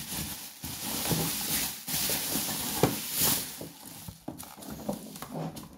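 Bubble wrap and plastic packaging rustling and crinkling as they are pulled off by hand, busiest over the first three seconds or so, with a sharp click about three seconds in, then quieter handling of the plastic box.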